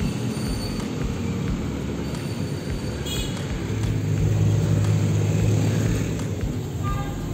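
Street traffic: cars and motorbikes running past. About halfway through, a louder low engine drone swells for a couple of seconds, then fades.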